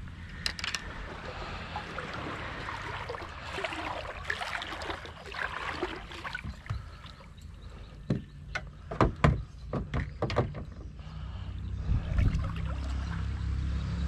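Small fishing boat under way on the water: a steady low hum with water noise, a handful of sharp knocks a little past halfway, and the hum growing louder near the end.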